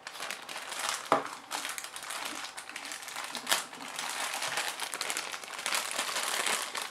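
Clear plastic bag crinkling as it is pulled open and unwrapped by hand, with a couple of sharper clicks, about a second in and about three and a half seconds in.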